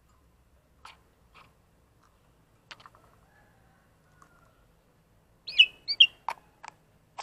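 Black-collared starling in a cage: a few scattered sharp clicks, then two short loud whistled call notes about five and a half seconds in, followed by a couple more clicks.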